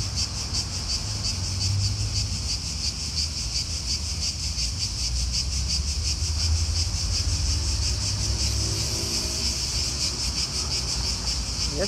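A chorus of cicadas buzzing steadily in a fast, even pulse, over a low rumble.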